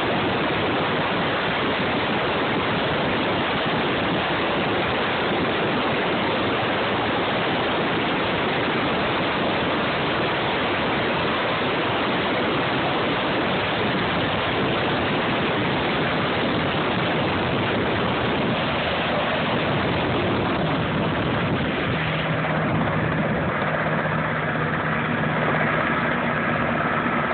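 Sikorsky S-92 helicopter's twin turboshaft engines and main rotor, a loud, dense, steady rush of noise as it lifts off and climbs away. About 22 s in the rush thins and a few steady tones come through as it moves off.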